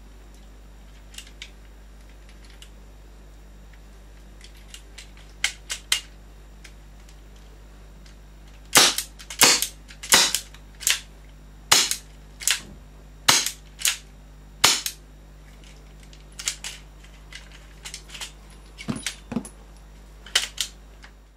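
Marushin Mateba airsoft revolver being worked: light metal clicks as cartridges go into the cylinder and it is closed. Then a run of about nine sharp, loud snaps a little under a second apart as the trigger is pulled and the hammer falls again and again. After that come lighter clicks as the cylinder is opened.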